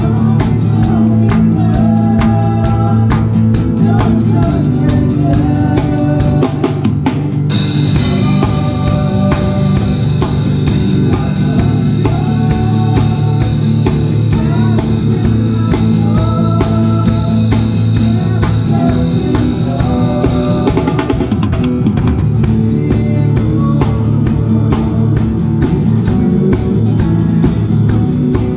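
Live worship band music driven by a drum kit playing a steady beat on bass drum and snare, with rimshots. About seven seconds in, cymbals come in and ring on until about three quarters of the way through.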